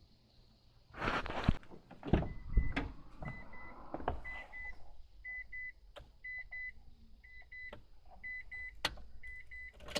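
Rustling and a few dull knocks in the first seconds. Then an electronic beeper sounds high double beeps about once a second.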